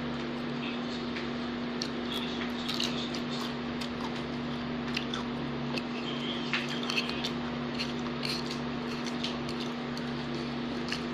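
A person chewing food close to the microphone: scattered small mouth clicks and smacks over a steady low hum.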